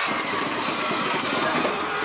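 Crowd noise in the stands of a high school football stadium, with music in the mix.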